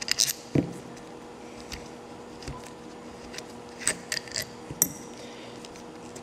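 Stainless steel caliper bolts being unscrewed from a two-piece Brembo brake caliper and set down: scattered metallic clicks and clinks, with a knock about half a second in and a cluster of sharp clinks around four to five seconds.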